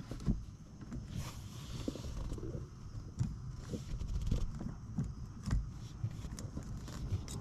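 Scattered light knocks and clicks, irregularly spaced, from handling metal parts while a gear shifter is fitted back onto its shift shaft and its nut put on.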